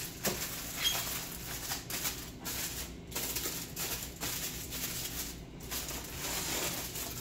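Aluminium foil crinkling and rustling as it is folded and pressed over food containers, an irregular crackle with small clicks.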